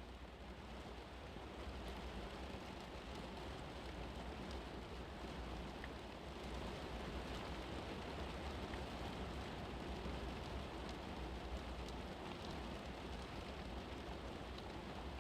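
Steady rain ambience: an even hiss with a few faint drop ticks.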